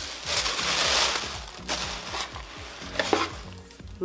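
Plastic sheet-mask packets and shredded paper box filler rustling and crinkling as they are handled, loudest in the first second or so.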